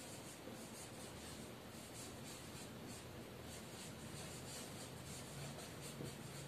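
Marker pen writing on a whiteboard: faint, repeated short scratching strokes as letters are formed.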